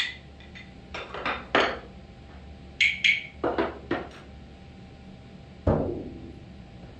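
Hand percussion struck in turn: a few sharp clicks of rhythm sticks, more knocks around three to four seconds in, then a single deep hit on a large frame drum that rings out briefly.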